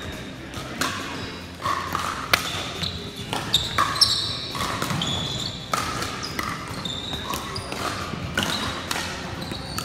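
Pickleball rally: sharp pops of paddles striking the hollow plastic ball, a run of them roughly a second apart, echoing in a gym hall. Sneakers squeak on the hardwood floor between hits, over faint voices.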